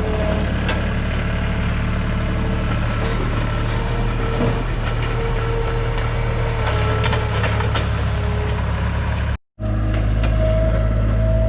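An engine running steadily with crackling and rattling over it. The sound drops out for a moment about nine and a half seconds in, then comes back with a different engine note.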